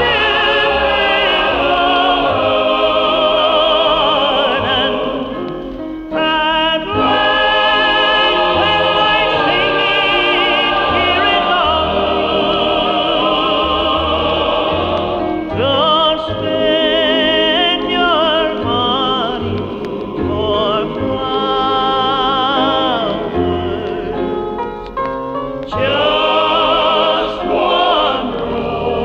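Gospel choir with a lead singer performing a song in long held phrases with heavy vibrato, with brief breaks between phrases.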